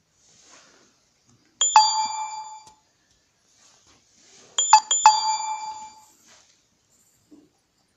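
A bell-like metallic ring sounds twice, each dying away over about a second; the second comes after a few quick knocks.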